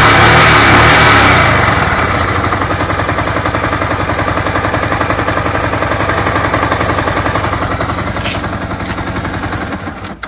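Yamaha R15 V2's single-cylinder engine running, revved for the first second or so and then settling to a steady, evenly pulsing idle. A clattering 'kit-kiti' tick is shown off in it, which the owner puts down to a worn chain tensioner.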